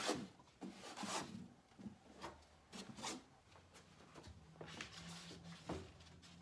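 A steel trowel scraping modified thinset mortar across the back of a pre-sloped foam shower pan half, then rubbing and light knocks as the pan half is lifted and laid down onto the mortar bed. The scrapes come in short strokes, the loudest near the start and about three seconds in.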